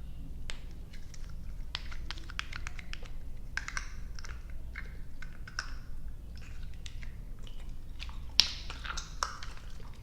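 Close-miked chewing of soft, sticky gummy and marshmallow candy: irregular wet mouth clicks and smacks, with one sharper click about eight seconds in.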